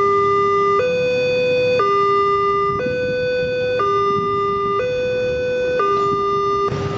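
Multech railway level-crossing warning alarm sounding its two-tone electronic signal, switching between a lower and a higher tone about once a second, warning that a train is approaching.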